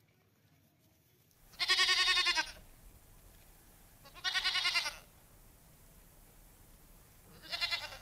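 Goat bleating three times: wavering calls about a second long, the last one shorter.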